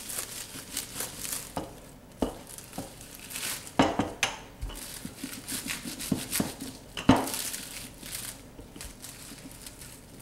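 Plastic wrap crinkling while a wooden rolling pin is rolled and pressed over chicken breasts on a stone countertop, with irregular knocks and clicks of the pin against the counter; the two loudest knocks come about 4 and 7 seconds in.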